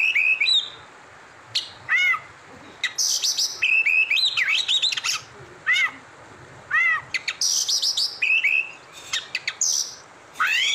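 Birds chirping: a run of short, repeated arched whistled notes, mixed with harsher rasping calls.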